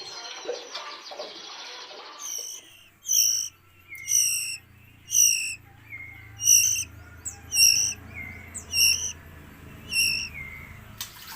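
A songbird repeats the same short call about once a second, eight times. Each call is a quick run of clear, high notes that steps downward.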